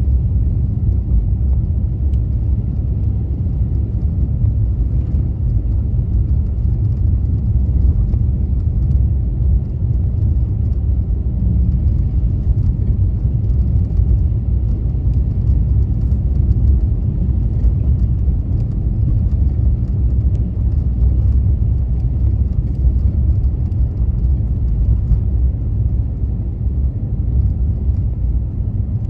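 Car driving on snow-covered streets: a steady low rumble of engine and tyres, with faint light ticks over it.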